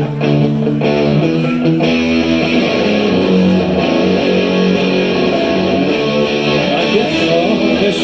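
Music: a guitar playing a picked and strummed chord pattern.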